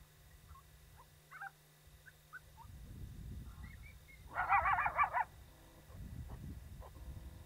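A coyote's short, quickly wavering howl, lasting about a second a little after the middle, preceded by a few faint high chirps. Low wind rumble on the microphone comes and goes.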